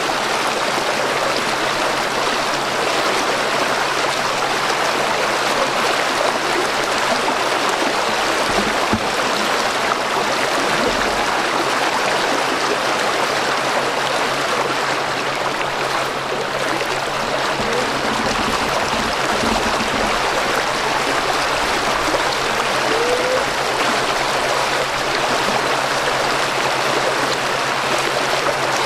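Shallow current rushing steadily around wading legs and stakes in the water, a continuous, even flow noise.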